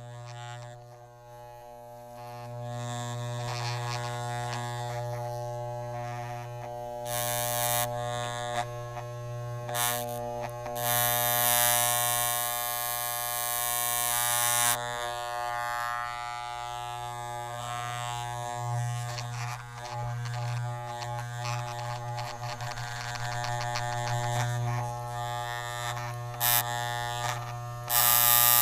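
Electric hair clipper running with a steady buzz at a constant pitch. Several times it turns louder and hissier, longest for about four seconds near the middle.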